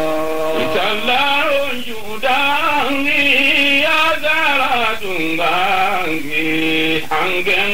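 A man singing a wavering, ornamented melody with long held notes.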